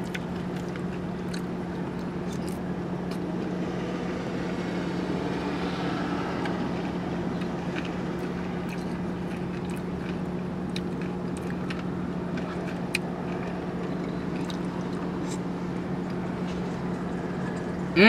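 Steady hum of an idling car heard from inside the cabin, with scattered small clicks of a plastic spoon in a paper cup and quiet eating sounds.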